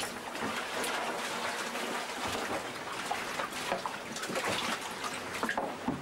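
Water sloshing and trickling inside the hull around the canting keel's hydraulic mechanism, with scattered small knocks and clatters throughout.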